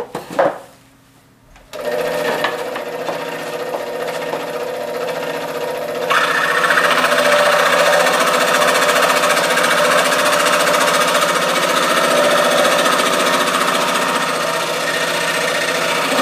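Scroll saw switched on about two seconds in and running steadily; some four seconds later the blade bites into a thick piece of wood and the sound turns louder and brighter as it cuts along the traced line.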